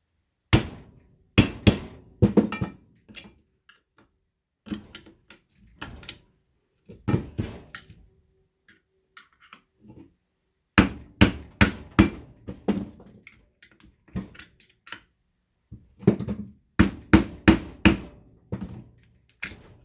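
Sharp metal knocks and clanks in irregular bunches, some ringing briefly, as the steel case of a fluorescent light ballast is struck and pried open to get at the copper winding.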